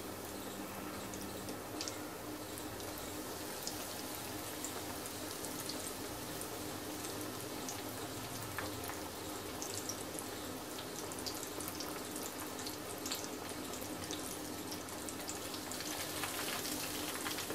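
Breadcrumb-coated chicken wings deep-frying in hot oil in a wok: steady sizzling with scattered crackles. It grows louder near the end as another piece is lowered into the oil.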